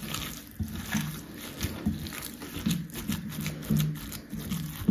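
Gloved hands squeezing and kneading ground pork mixed with dried herbs in a glass bowl, in irregular strokes about twice a second.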